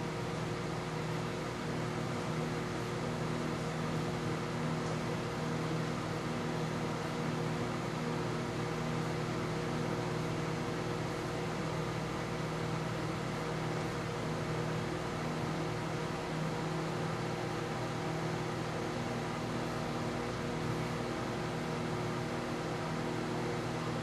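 Emerson countertop microwave oven running mid-cycle, a steady, unchanging hum.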